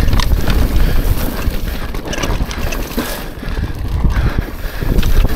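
Wind rushing over the microphone as a downhill mountain bike rides fast over rough trail, with a steady rumble and many quick rattles and knocks from the bike.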